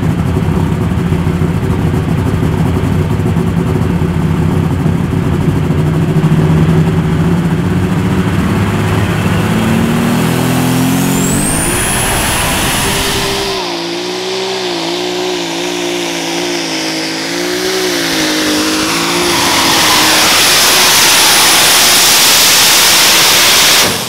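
Unlimited super stock pulling tractor engine running hard, its pitch climbing about ten seconds in, with a high whistle sweeping upward soon after. It then holds a wavering, unsteady note and grows louder near the end, where it cuts off suddenly.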